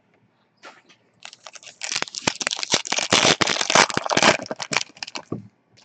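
A trading-card pack's wrapper being torn open and crinkled by hand: a few light crackles, then about three and a half seconds of dense crinkling and tearing that stops suddenly.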